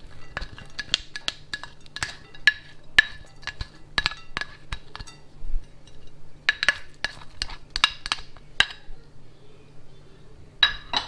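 A spoon clinking and scraping against ceramic dishes as chopped ingredients are knocked off a plate into a bowl: a quick run of ringing clinks, a pause of about a second and a half, another run, and two more clinks near the end.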